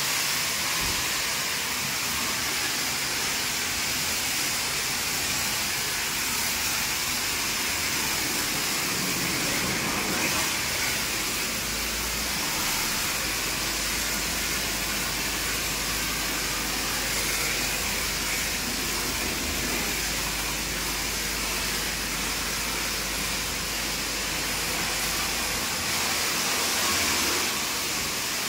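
Snow foam being sprayed onto a car from a foam lance: a steady, loud hiss of foam spray. A low hum joins about twelve seconds in and stops a few seconds before the end.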